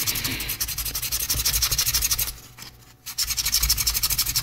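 Sandpaper rubbed by hand over a small turned poplar wood body in rapid short back-and-forth strokes, pausing briefly a little past halfway and then resuming.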